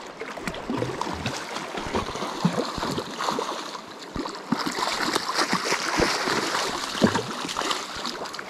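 River water running and lapping over shallow sand. About halfway through, splashing picks up as a steelhead thrashes in the shallow water at the bank's edge.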